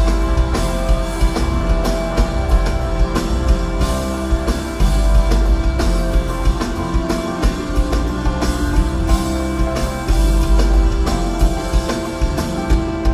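Instrumental livetronica band playing live, heard as a soundboard mix: drums keep a steady beat under heavy bass and held melodic notes.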